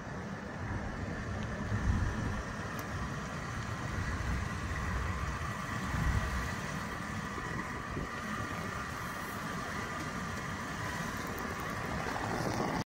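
Truck engine running at low revs during slow parking manoeuvres, a steady hum with a couple of low swells.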